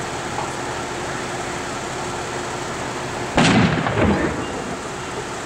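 A sudden loud bang from the burning Ford F-350 pickup about three and a half seconds in, followed by a second smaller pop, each dying away in a rumble. Under it runs the steady drone of the fire engine's idling engine.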